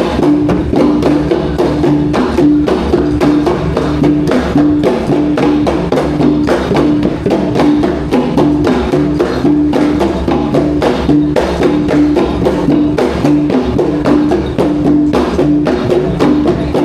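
Traditional Borneo ensemble music: drums and struck percussion beat a steady, dense rhythm under a pitched note repeated at even intervals.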